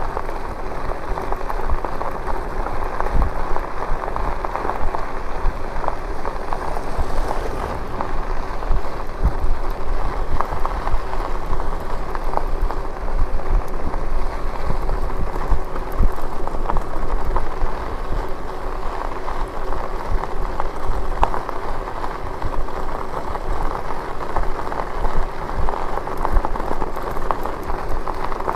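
Lectric e-bike tyres rolling over a dusty unpaved road, a steady crackling rumble with a few sharp knocks from bumps or stones, and a faint steady hum underneath.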